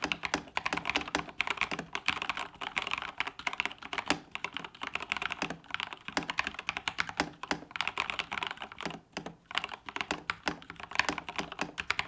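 Lofree 1% mechanical keyboard being typed on quickly: a dense run of key clacks with a couple of brief pauses. It sounds a little louder than expected.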